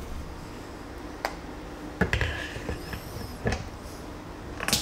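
A few light clicks and taps, about four spread through, from a hand handling the coin tray and coin of a brass magnetic-pendulum silver tester.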